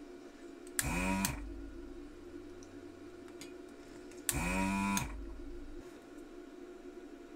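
Vacuum pump of a handheld desoldering gun triggered twice, about three seconds apart. Each time it spins up with a rising whine, runs for about half a second, and winds down. It is sucking molten solder from electrolytic capacitor joints on a circuit board.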